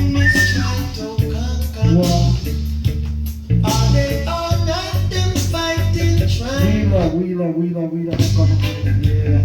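Reggae song with singing over a heavy bass line and a steady beat; the bass drops out briefly near the end.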